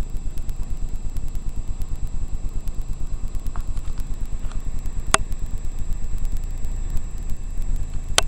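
Motorcycle engine idling with an even low throb. Two sharp clicks cut through it, one about five seconds in and one near the end.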